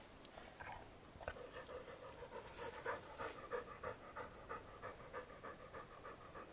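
A dog panting fast and steadily, a little under four breaths a second, out of breath from playing fetch.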